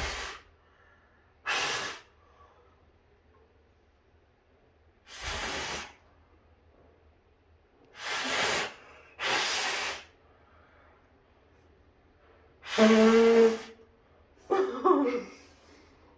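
A person makes repeated attempts at a loud whistle: about seven short, forceful blasts of breath come out mostly as hissing rushes of air without a clear whistle tone. Near the end there is a brief voiced sound.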